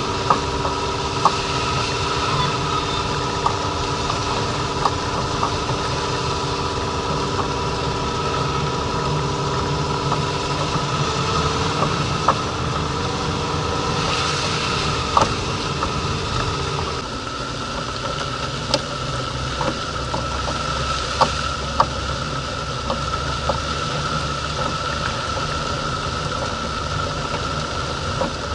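Ford Focus II 1.8 driving over an uneven road: steady engine and road noise with sharp, irregular knocks from the rear suspension every second or few seconds. The knocks are the sign of worn rear suspension parts, which the owner puts down to the rear stabilizer links, control arms or their silent blocks.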